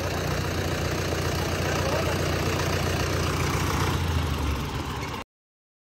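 Tractor diesel engine idling steadily. It cuts off suddenly about five seconds in.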